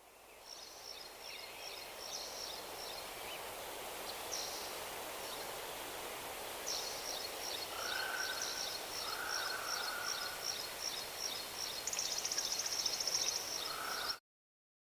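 Small birds chirping: rows of short, high chips several times a second, with a few lower calls, over a steady background hiss. A fast trill comes near the end, then everything cuts off abruptly.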